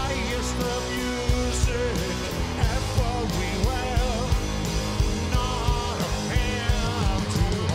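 Live rock band playing: a male lead singer sings over electric guitar, bass and drums.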